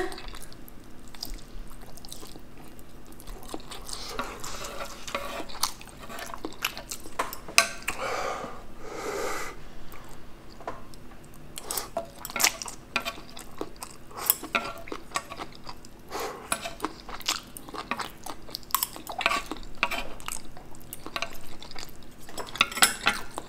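Metal chopsticks clicking and scraping against a wooden board while picking up scraps of food, with close-up chewing in between.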